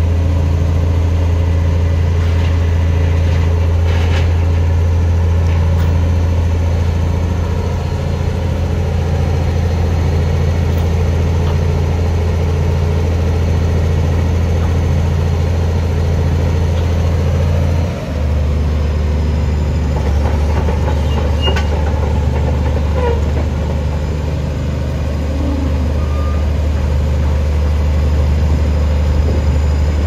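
2002 Komatsu D65PX-12 crawler bulldozer's diesel engine running steadily as the machine drives and turns on its tracks. Its low engine note steps down to a lower pitch a little past halfway through.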